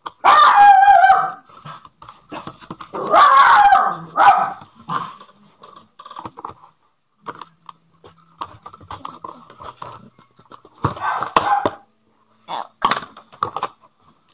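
A dog yelping and whining in several short bouts, the loudest in the first second and a half and again around three to four seconds in, with more near the end.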